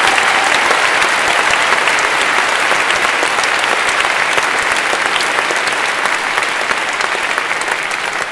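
A large audience applauding: a dense, even clatter of many hands clapping, easing off slightly near the end.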